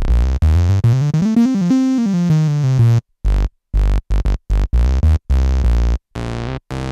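Korg RK-100S 2 keytar playing a synthesizer patch. A note swoops up in pitch and slides back down within the first three seconds, then short, clipped notes follow with sudden stops and gaps between them.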